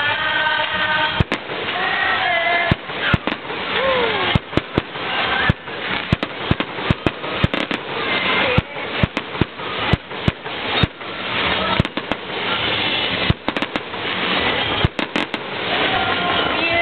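Aerial fireworks display: shells bursting overhead in a rapid barrage, dozens of sharp bangs, at times several a second.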